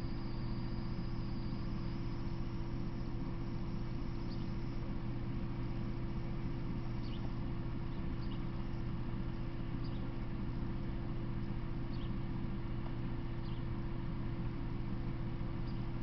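Steady low hum over a constant hiss, with faint, short high chirps every second or two.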